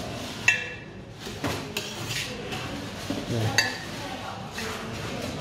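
Metal cake palette knife clinking against metal: two sharp, ringing clinks about three seconds apart, with fainter taps between, as cream is smoothed on a cake turntable.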